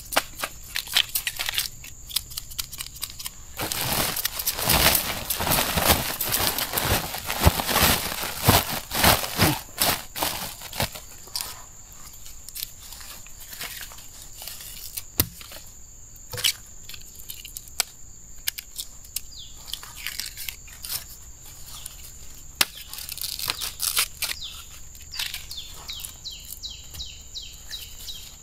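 Dry bamboo husks and leaf litter being handled: repeated rustling, crackling and tearing, busiest from about four to eleven seconds in and sparser afterwards.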